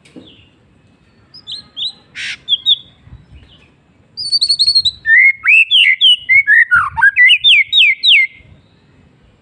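White-rumped shama singing: a few short whistled notes, then from about four seconds in a loud, rapid run of varied, swooping notes that stops shortly before the end.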